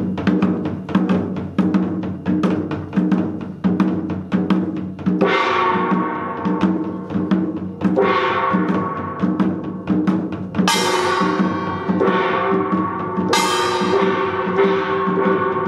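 Korean traditional percussion: buk barrel drums beat a steady rhythm. About five seconds in, ringing metal gong strokes join them, with stronger, brighter gong strikes near the end.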